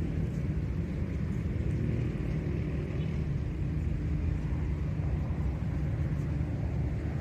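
A steady low rumble, even throughout, with nothing sharp standing out above it.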